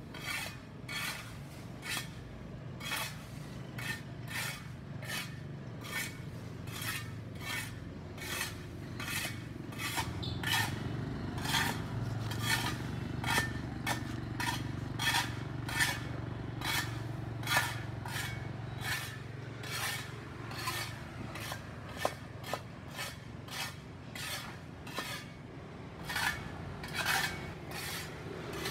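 Hand tool scraping dirt and debris off a sidewalk in steady, rhythmic strokes, a little under two a second, over a low steady hum.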